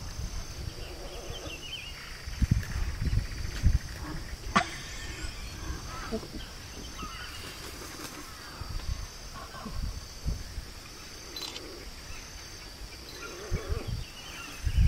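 A steady, pulsing high insect buzz, with scattered short calls from the hyacinth macaws at the nest and soft low rumbles of wind or handling on the microphone. A sharp click comes about four and a half seconds in.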